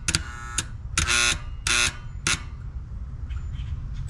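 AC condenser contactor buzzing in four short, irregular bursts in the first two and a half seconds, each half a second or less. This harsh electrical buzz is the sign of a failing contactor.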